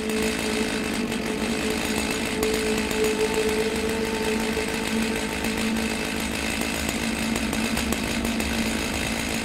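Chainsaw engine running steadily at one speed, without revving.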